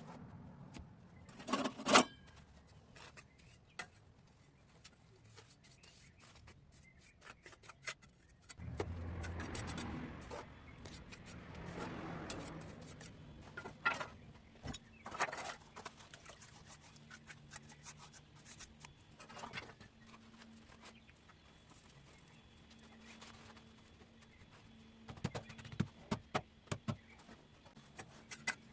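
Bricklaying with a trowel and mortar on old clinker bricks: scattered taps, clicks and knocks, with two longer scraping passes of a couple of seconds each about a third of the way in and a quick run of taps near the end.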